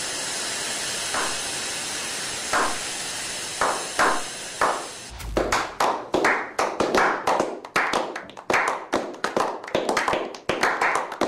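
A slow clap by a small group of men over a steady hiss. Single claps land a second or more apart at first, then from about five seconds in they quicken into steady clapping, several claps a second.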